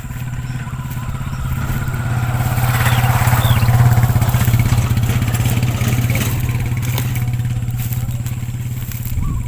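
A small engine running with a low, even hum. It grows louder to a peak about four seconds in and then slowly eases off.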